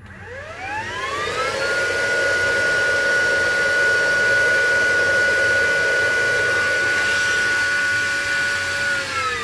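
Hoover Evolve Pet cordless vacuum's motor spinning up to its top setting with a rising whine, running at a steady high pitch for about seven seconds, then winding down near the end.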